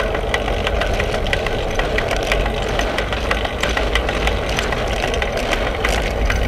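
A steady low mechanical rumble with a noisy midrange hiss, and many sharp, irregular clicks and ticks scattered through it.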